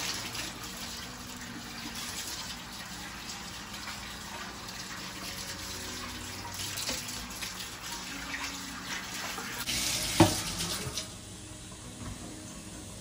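Kitchen tap running into a stainless-steel sink while dishes are rinsed under it, with a sharp knock about ten seconds in. The running water stops about eleven seconds in.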